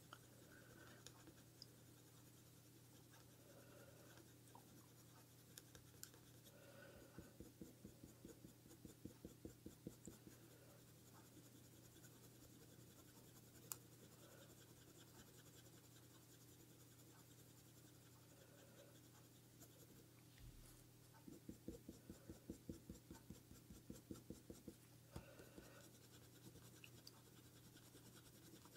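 Faint scratching of a coloured pencil on hot-press paper, in two runs of quick back-and-forth shading strokes, about three a second.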